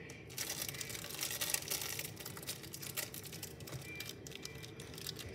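Plastic wrapper of a strawberry Nutri-Grain cereal bar being opened by hand: irregular crinkling and small crackles.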